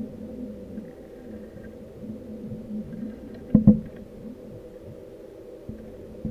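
Muffled underwater sound picked up by an action camera in its waterproof housing on a weighted fishing rig: a low, steady rumble and hum of the water. Two sharp knocks land close together a little past halfway, with a smaller one at the end, as the rig knocks against the housing.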